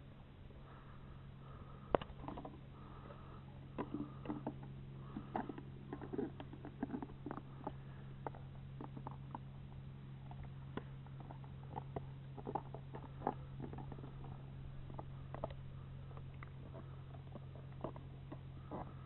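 A dog chewing an empty plastic bottle: irregular crackles and crunches of the plastic as its teeth work on it, coming in quick clusters.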